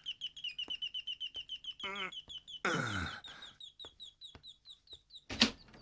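Electronic doorbell chirping: a fast, even run of short, high bird-like tweets at one steady pitch that stops about five seconds in. A man groans twice partway through, and there is a sharp click near the end.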